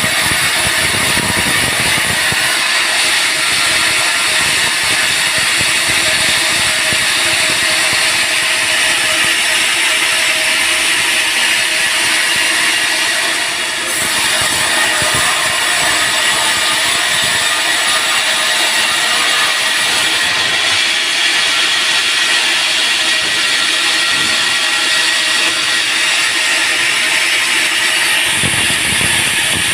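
Band sawmill running as it cuts a teak log: a loud, steady high-pitched noise that dips briefly about 14 seconds in.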